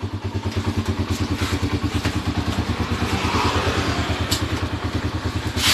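Motorcycle engine idling steadily at about ten even exhaust pulses a second, its valve clearance freshly set with a feeler gauge. A brief sharp sound comes near the end.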